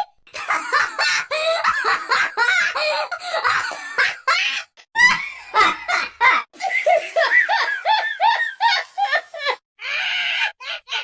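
A run of short cartoon-character laughs spliced one after another, each a quick series of rising-and-falling 'ha-ha' bursts, with abrupt cuts between clips.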